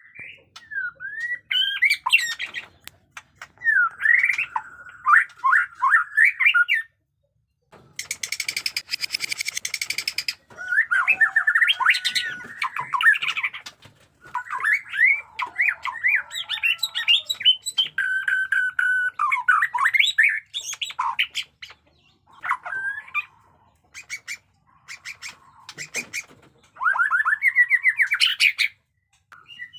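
White-rumped shama singing in loud, varied phrases of whistles, rapid trills and sweeping notes, broken by short pauses. A harsh, rattling phrase about eight seconds in lasts some two seconds.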